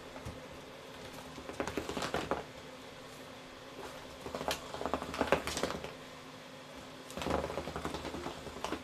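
A cat pawing into the holes of a round wooden cat toy, tapping and rattling it in three spells of quick clatter, over a faint steady hum.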